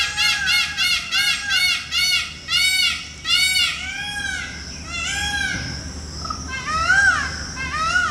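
Peacock calling: a fast run of short, arched, honking notes, about four a second, that slows to about one a second, with a few rising notes near the end.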